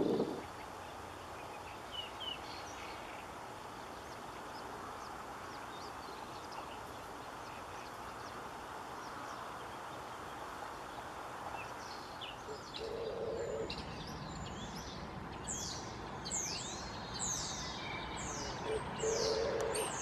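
Whinchat singing: faint high calls early on, then from about halfway a quick series of high notes sliding downward, more frequent toward the end, over a steady outdoor hiss. A short low note sounds twice.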